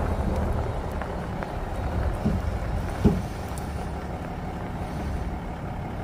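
2023 GMC Sierra Denali pickup rolling slowly with a steady low rumble, and knocks from the rear suspension, one about two seconds in and a louder one about three seconds in. The owner suspects the rear leaf springs shifting and binding against each other.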